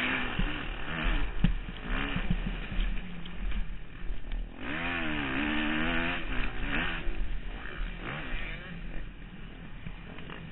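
Dirt bike engine heard from the rider's helmet camera, revving up and down repeatedly as it is ridden hard along the track.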